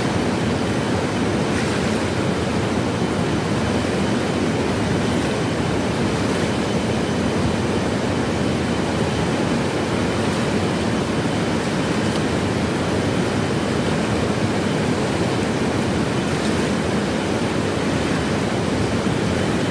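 Swollen river rushing steadily: a continuous, even wash of fast water.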